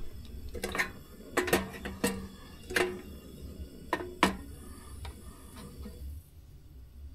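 Kitchenware being handled and set down: about seven sharp clinks and knocks, several with a short metallic ring, over the first four and a half seconds, then only a few faint taps.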